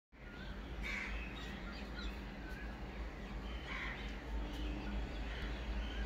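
Birds calling, with three louder calls about a second, four seconds and five and a half seconds in and fainter chirps between, over a steady low rumble.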